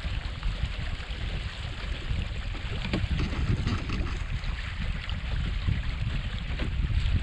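Wind buffeting the microphone in a low, uneven rumble, with water hissing and splashing along the hull of a small sailboat under way.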